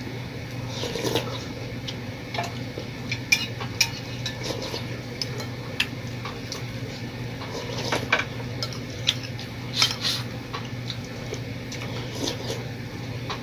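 Spoons clinking and scraping against plates and bowls as people eat: scattered short clicks throughout, over a steady low hum.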